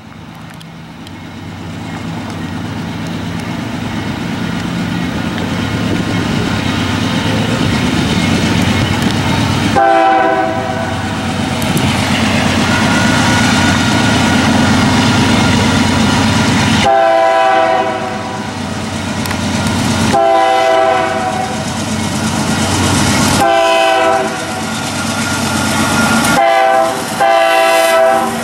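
Union Pacific diesel locomotives approach at the head of a coal train, their engines rumbling louder and louder. About a third of the way in, the multi-note air horn starts sounding a series of long blasts for the grade crossing, with brief breaks between them and a shorter blast near the end.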